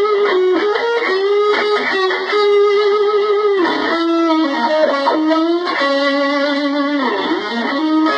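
Fender Stratocaster electric guitar played through a Roland Blues Cube Artist amplifier: a lead line of single held notes, several bent up or down in pitch, with a deep dip in pitch near the end.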